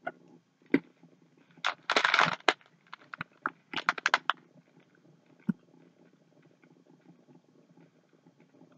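Crunching of a candy-shelled white chocolate peppermint M&M being chewed: sharp crackly crunches, densest around two and four seconds in, with one last crunch a little later.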